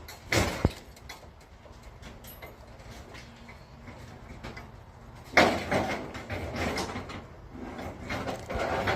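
Scrap items being shifted around on a loaded trailer: a couple of sharp knocks near the start, then from about halfway a loud scraping, rattling clatter with more knocks.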